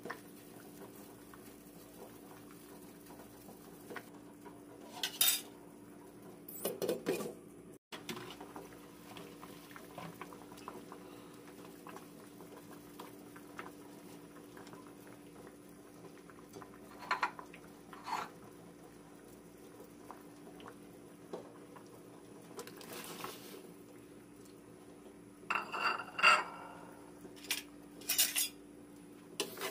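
Scattered clinks and clatter of metal utensils against a stainless steel cooking pot, in short clusters several seconds apart, the loudest near the end. A faint steady hum runs underneath.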